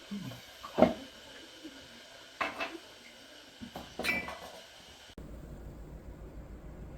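A few separate knocks and clatters of household handling, like dishes and a cupboard door, the loudest a little under a second in. After about five seconds the sound changes abruptly to a steady low hum.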